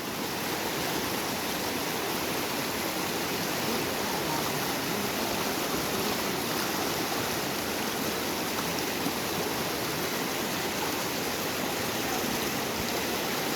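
Small river's shallow water rushing and splashing steadily over rocks.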